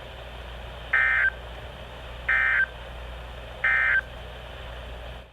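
Three short bursts of buzzing data tones, evenly spaced about 1.3 seconds apart, over a steady radio hiss. They are the Emergency Alert System's SAME end-of-message code, which closes a broadcast severe thunderstorm warning.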